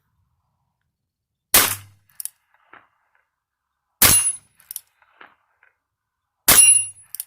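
Three shots from a Ruger Wrangler .22 LR single-action revolver, about two and a half seconds apart, each followed by a few faint clicks.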